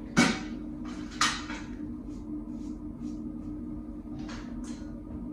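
Two sharp clacks about a second apart, then a few faint short swishes, as medical supplies are handled while a blood draw is prepared.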